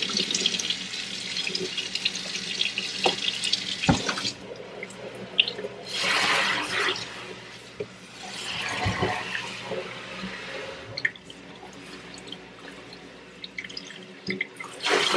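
Kitchen faucet running into a stainless steel sink, then shut off with a knock about four seconds in. After that come short bursts of water as the pull-down sprayer rinses the sink basin, followed by quieter handling.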